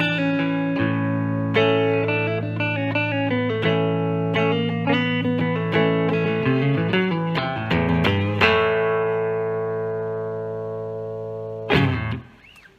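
Electric guitar with a Black-eyed Susan single-coil neck pickup, played clean through a Fender Vibrolux Reverb amp: picked single notes and chord fragments, then a chord left ringing and fading for about three seconds. Near the end the chord is cut off with a short noisy scrape.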